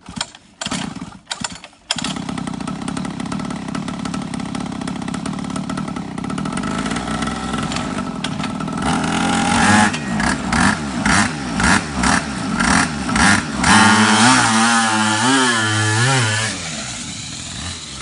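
Small motorbike engine fitted to a mobility scooter being started: a few short bursts, then it catches about two seconds in and runs. From about ten seconds in it is revved repeatedly, then its pitch swings up and down as it is ridden, growing quieter near the end.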